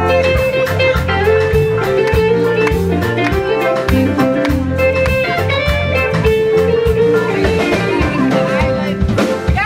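Live band playing a smooth-jazz instrumental, with guitar over piano, bass and drums keeping a steady beat.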